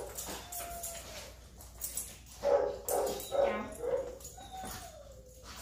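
A dog whining: a thin high whine near the start, a run of about four short calls at roughly two a second about halfway through, then a long falling whine near the end.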